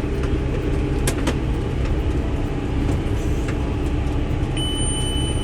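Tractor engine running steadily while pulling a round hay baler. A steady high-pitched tone starts about a second before the end.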